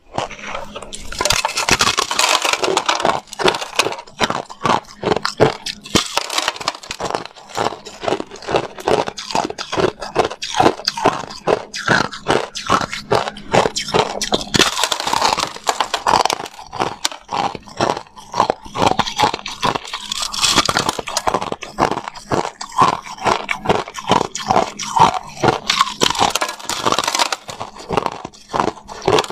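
Crushed ice bitten and chewed close to the microphone: a dense, continuous run of sharp crunches and crackles as the ice breaks between the teeth.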